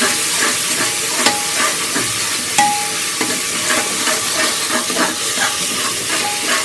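Metal spatula stirring and scraping against the bottom of a pressure cooker, in irregular clicks, over a steady sizzle of onions, mint and ginger-garlic paste frying in sesame oil.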